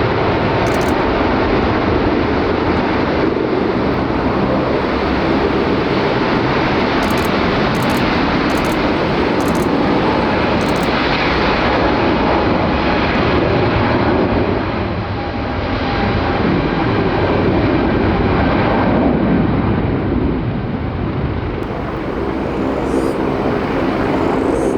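Jet airliner engines running loud and steady as the aircraft passes, with the sound easing slightly twice in the second half.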